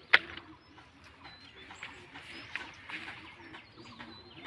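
Hand-picking lablab (hyacinth) bean pods: leaves rustling and a sharp snap just after the start as a pod is pulled off the vine. Birds chirp faintly in the background.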